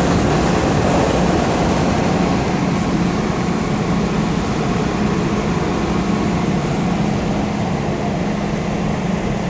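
Steady, loud rumble of a large car ferry's engines and propellers working while it docks, with a constant low hum under the churning noise.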